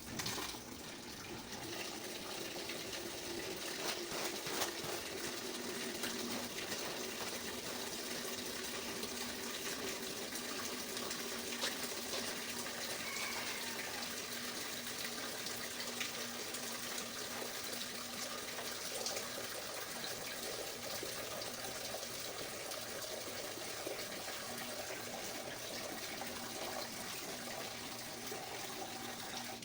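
Tap water running steadily, with a few faint knocks over it.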